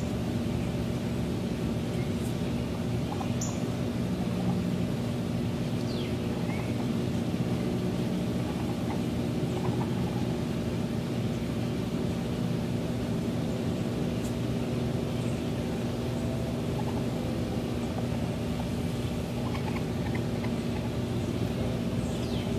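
Steady mechanical hum with a few held low tones and an even level throughout. A few short, high bird chirps come and go over it.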